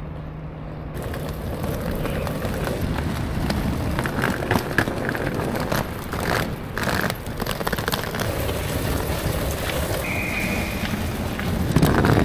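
Outdoor city street noise of passing traffic, with a wheeled suitcase rattling over the pavement. A brief high beep sounds about ten seconds in.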